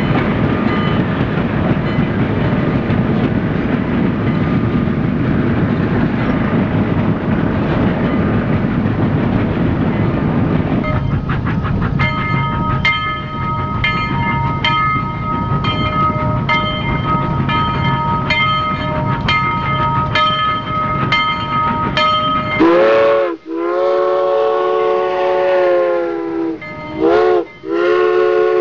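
A train running with a rumble, then a regular clickety-clack of wheels over rail joints about twice a second. Near the end a long warning blast, dipping in pitch at its start, is followed by a short blast.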